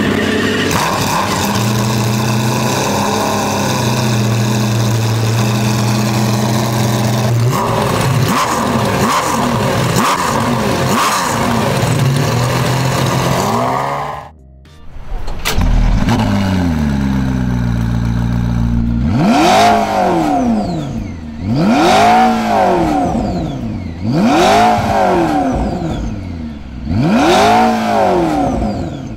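McLaren F1 GTR's V12 running hard, holding a steady note and then revving up and down. After a brief break, a McLaren P1's twin-turbo V8 starts and settles to idle, then is blipped four times, about every two and a half seconds, each rev rising and falling sharply.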